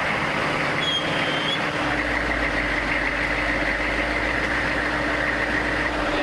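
A large vehicle's engine running steadily, with a steady high whine over it.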